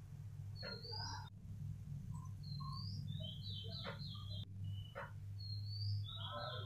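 Small birds chirping: several short rising chirps and quick runs of repeated high notes, with a few clicks. Under them, a steady low rumble from a pot of chicken boiling hard.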